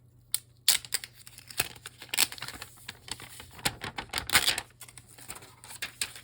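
A smartphone being handled and turned over: a quick run of sharp clicks, taps and crinkly rustles, busiest in the middle.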